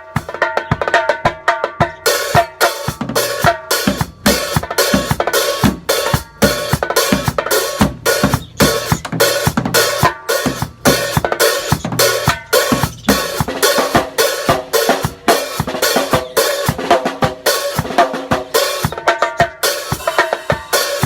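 Drum kit played in a steady, driving beat of kick, snare and rimshots. The high strikes grow denser about two seconds in.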